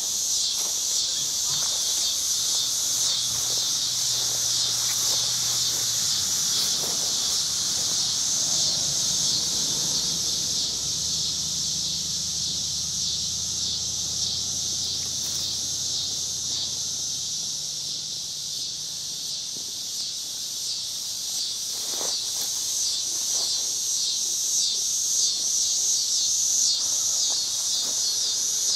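Steady, high-pitched chorus of insects with a fast, even pulse, outdoors on a summer day.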